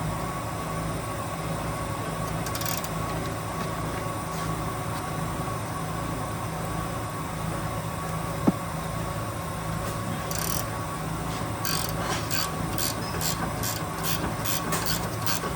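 Socket ratchet clicking in quick regular strokes, about three a second, from about three-quarters of the way in, as a drop-link nut is worked. A steady mechanical hum runs underneath, with a single click about halfway through.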